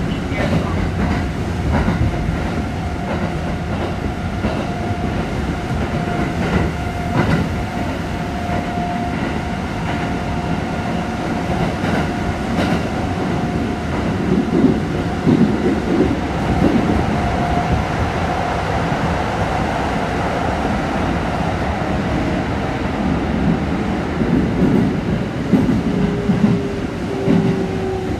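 Kintetsu 1220 series electric train running, heard from inside the car: a steady rumble with wheels clicking over rail joints, and a steady whine from its Hitachi GTO-VVVF traction equipment. Near the end a lower whine starts and glides slowly down in pitch.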